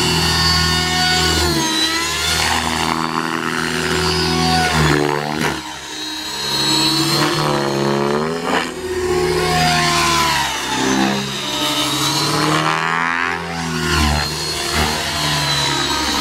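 Align T-Rex 600E electric RC helicopter flying aerobatics: the whine of its motor and rotor blades sweeps up and down in pitch again and again as it swoops past and changes speed.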